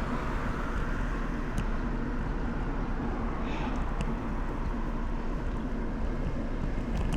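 Wind rush on an action camera's microphone with road and tyre noise from a bicycle being ridden, steady throughout.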